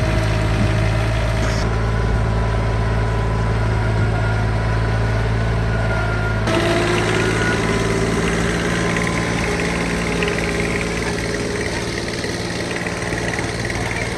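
Engine of a 25-horsepower Branson compact tractor running steadily, with a slight rise in pitch after about six and a half seconds.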